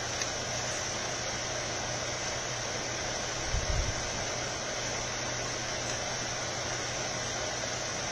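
Steady background hiss with a low hum, like a fan or air conditioner running, and a few soft low bumps about three and a half seconds in.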